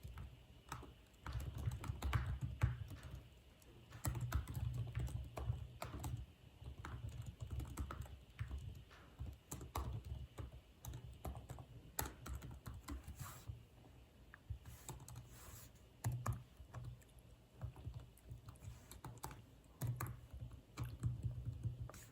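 Typing on a computer keyboard: irregular clicking keystrokes in bursts, with short pauses between them.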